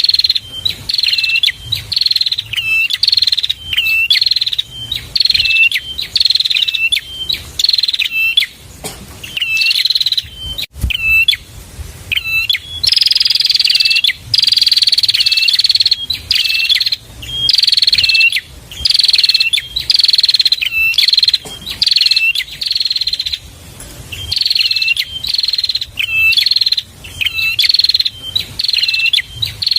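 Prenjak (a small Indonesian prinia) singing: a loud, high, sharp chirping phrase repeated over and over, about once or twice a second, with a longer held buzzy stretch near the middle.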